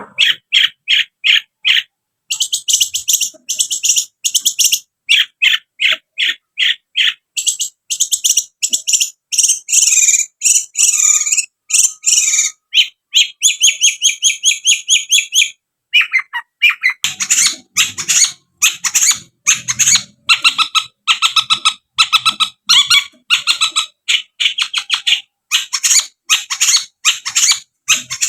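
Long-tailed shrike singing in full song: fast runs of sharp, high chattering notes, broken by short pauses.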